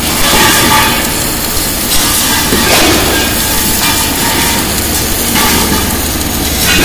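Submerged arc welding machine running a circumferential seam on a rotating LPG cylinder body: a loud, steady mechanical noise with a low hum underneath that swells and eases a few times.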